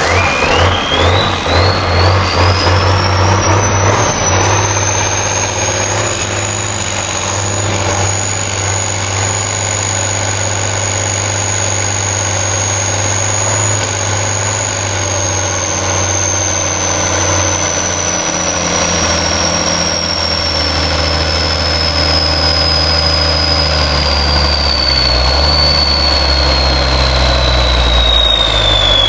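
Truck engine on a test stand running after its first start in years, a steady low drone, with a high whine that climbs steeply over the first few seconds, holds, then slowly falls toward the end.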